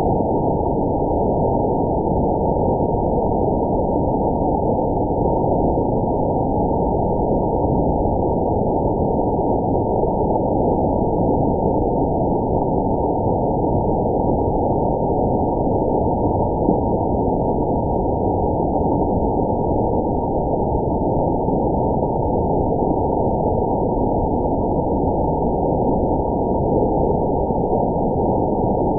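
Waterfall's rushing water, a steady deep noise with no higher sounds in it, as the audio of a slow-motion waterfall video slowed down with the picture.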